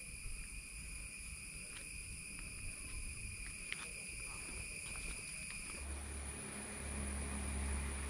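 Insects calling steadily at several high pitches in forest, with a few faint clicks. About six seconds in, a low rumble comes in and one of the insect pitches stops.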